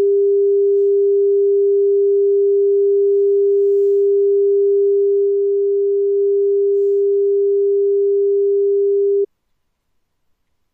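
Steady pure test tone on the Pioneer CT-939 cassette deck's output, dipping slightly in level about five seconds in as the level knob is turned, then cutting off suddenly near the end.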